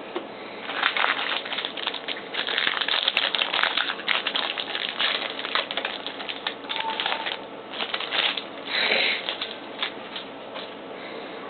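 Crinkly trading-card packaging being handled and crumpled by hand, crackling in uneven bursts, loudest about nine seconds in.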